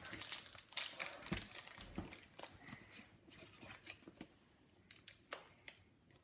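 Foil Pokémon card booster pack crinkling in the hands and being snipped open with scissors: a faint run of short crinkles and clicks, busiest in the first two seconds and thinning out after.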